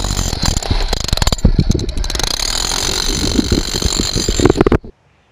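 Handheld electric power tool running hard with a high motor whine and a rough, chattering edge, then switched off and cut off abruptly near the end.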